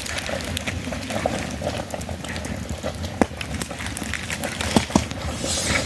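A cooking pot bubbling at the boil, a steady seething hiss with scattered sharp pops and crackles, two of them louder.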